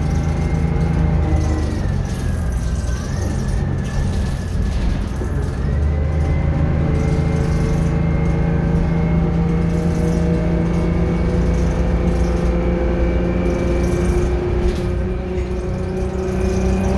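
Detroit Diesel 6V71N two-stroke V6 diesel of a 1982 GM New Look bus running under way, heard from inside the cabin. The engine eases off about two seconds in, then pulls again from about six seconds in, its pitch climbing slowly with a high whine rising along with it.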